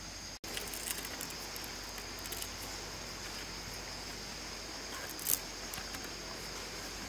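Steady high-pitched insect drone, with a few brief crackles and rustles of dry bamboo strips being wound and knotted around a pole, the sharpest about five seconds in. The sound drops out for an instant just after the start.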